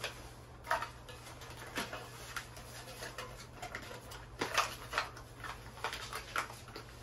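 Plastic and foil food packets crinkling and rustling as they are handled and sorted, with a few light taps as items are set down.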